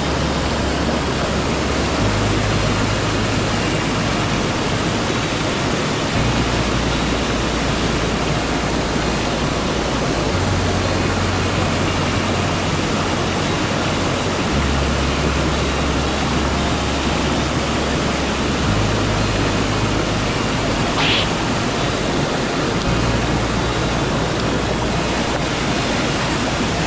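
Mountain stream water rushing steadily over rocks, a constant even hiss.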